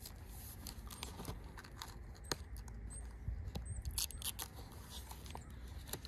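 Paper wrapping being handled and pulled off an axe head: rustling with a few light clicks and scrapes.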